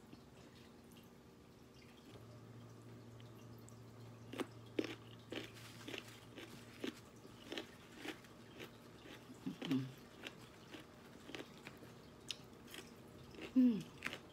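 A person chewing crisp unripe baby mango: a run of sharp, irregular crunches. Two short vocal sounds come through, one near the middle and a louder one near the end.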